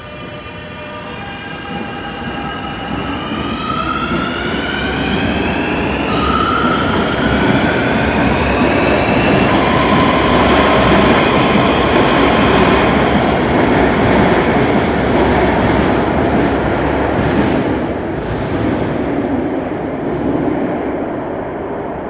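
Beijing Subway Line 6 metro train pulling out of the station: its traction motors whine, a stack of tones climbing in pitch over the first half as it picks up speed. A rumble of wheels on rail grows under the whine, is loudest about halfway through, then fades as the train moves off.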